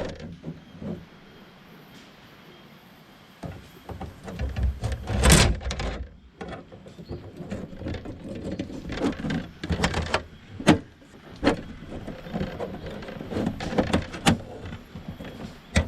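Parts of a small folding backpack table being handled and fitted together: rustling and scraping with a run of sharp clicks as the legs are snapped onto the two half shells, starting after a quiet first few seconds.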